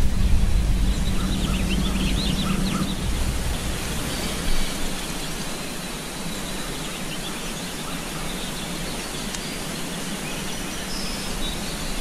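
Outdoor nature ambience: a steady noisy background with scattered short bird chirps, most of them in the first few seconds, and a low rumble that fades out about four seconds in.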